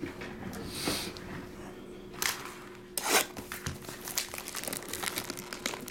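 Plastic and foil wrapping crinkling and tearing in handled bursts as sealed trading-card packs are worked open, with small clicks of handling in between.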